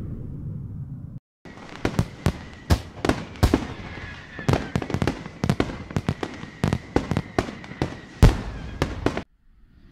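Fireworks going off: a long, irregular string of sharp bangs and crackles, with a faint steady whistle beneath them. It follows a fading low rumble and a brief pause about a second in, and stops shortly before the end.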